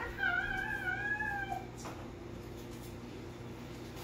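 A household pet's single long, high cry, wavering slightly in pitch and lasting about a second and a half near the start, over a steady low hum.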